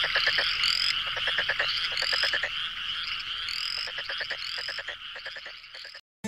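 A chorus of frogs calling: a dense, steady high trill with a short rising peep about every second and a half, and bursts of rapid pulsed croaks beneath. It grows quieter in the last couple of seconds and cuts off shortly before the end.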